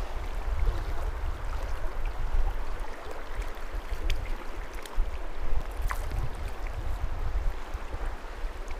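River water rushing through a rapid, with a strong low rumble underneath.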